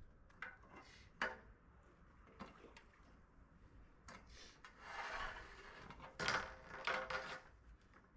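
Hard objects being handled: a few sharp knocks, then scraping and rubbing from about four seconds in, loudest near the end.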